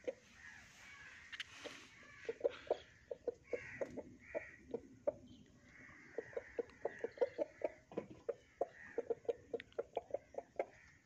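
A black rooster giving a run of short, low 'kut-kut' food calls, several a second in bursts with brief pauses, while it pecks at grain. This is tidbitting: the rooster calling the hen to come and eat with it.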